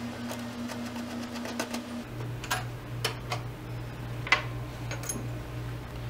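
A hand screwdriver backing out the screw on the steel expansion-slot cover of a PC case, with a few sharp metal clicks and taps as the cover is worked loose. A steady low hum runs underneath and drops in pitch about two seconds in.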